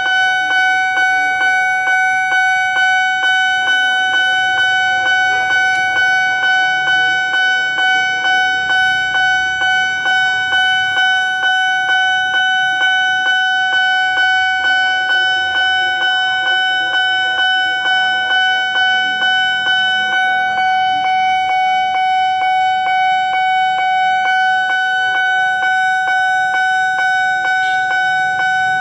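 Railway level-crossing warning alarm sounding: a steady, loud electronic tone that pulses about twice a second, the signal that a train is approaching and the barrier is closing.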